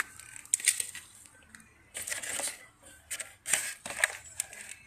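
Handling noises while repotting a plant: a series of short rustling, crinkling scrapes from a plant container and potting soil being handled, about five of them.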